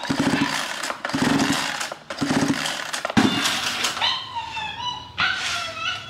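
Four harsh, rough bursts of about a second each, then high, wavering whines from a dog, gliding up and down in pitch over the last two seconds.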